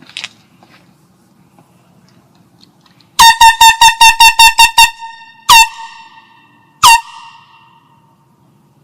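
Small handheld canned air horn sounding loud: a rapid string of about ten short blasts, then two single blasts a second or so apart, each trailing off in a short echo.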